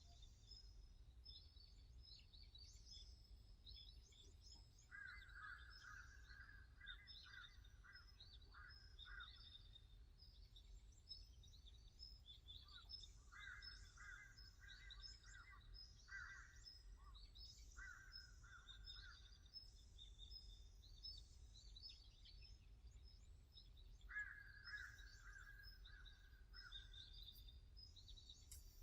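Faint birdsong in woodland: several birds chirping throughout, and one bird repeating a phrase of quick notes in three bouts, about five seconds in, around thirteen seconds, and again near the end, over a low steady rumble.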